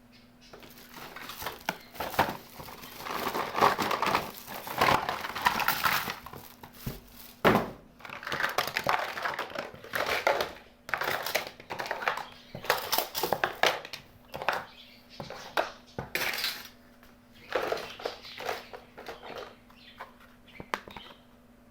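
Plastic packaging crinkling and rustling in irregular bursts while a toy kitchen set is unboxed, with sharp clicks of small plastic pieces, the loudest about seven seconds in.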